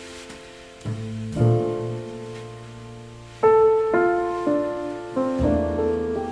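Solo piano music played back through Tang Band W4-2142 4" full-range drivers in small bass-reflex cabinets: slow chords struck one after another, each left to ring and die away.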